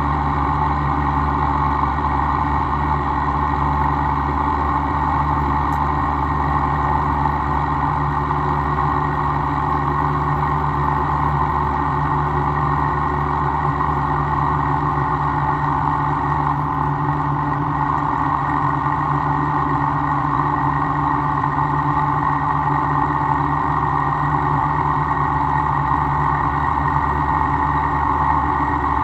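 Milling machine running steadily through a cut in AR400 steel, with an even hum made of several steady tones.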